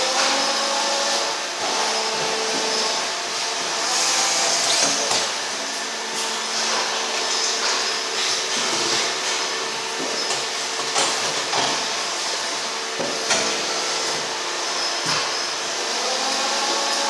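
Injection moulding machine running in a factory: a steady mechanical hum and hiss with scattered short knocks, and a rising whine about a second in and again near the end.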